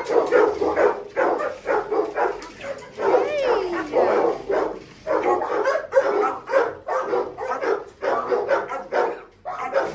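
Many kennelled shelter dogs barking over one another without a break. One dog gives a drawn-out falling yelp about three seconds in.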